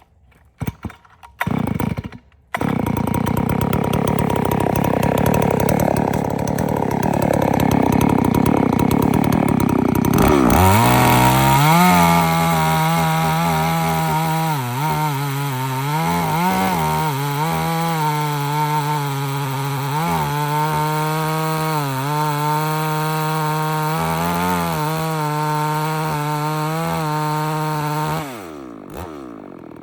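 Farmmac F380W chainsaw started with a few quick pulls about two seconds in, then run hard through a cut, its pitch steady with brief dips under load. Near the end the throttle is let off and the engine winds down.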